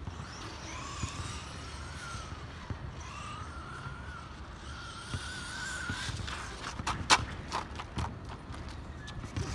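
Electric RC monster truck's motor whining, its pitch rising and falling as it speeds up and slows for several seconds, followed by a run of sharp clicks and knocks about six to eight seconds in, one of them loud.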